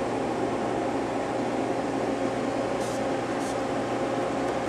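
Steady idle hum of a powered-up Okuma LNC8 Cadet CNC lathe, its hydraulic unit and cooling fans running, with a few steady tones in it. Two short hisses come a little past the middle.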